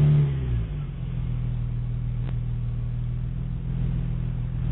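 Stock exhaust of a 2003 Nissan Skyline 350GT (Infiniti G35) sedan's 3.5-litre VQ35DE V6, heard at the twin tailpipes just after starting. The start-up flare drops away within the first second and the engine settles into a steady idle.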